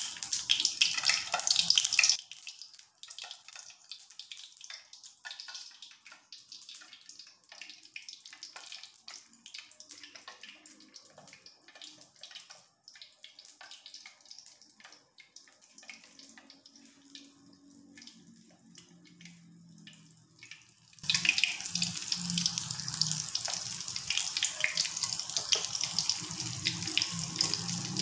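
Hot oil sizzling as breaded squid rings deep-fry in a wok. It drops away after about two seconds to a long quiet stretch with only faint light clicks, and the steady sizzle comes back loud near the end.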